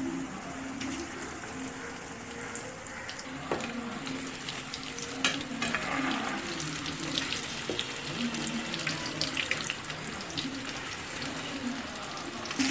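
Battered chicken pieces deep-frying in hot oil in an aluminium kadai: a steady bubbling sizzle with crackles and a few sharper clicks.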